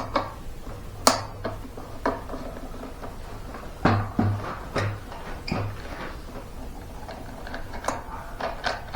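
Scattered clicks and light metallic clinks of hand tools and screws while hex screws are being undone from a backpack leaf blower's plastic housing.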